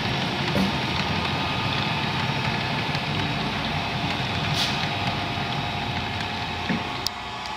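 Model railway in operation: the steady drone of a DCC sound-fitted diesel engine played through the locomotive's small speaker, over the rumble of model wagons rolling on the track. A sharp click comes near the end.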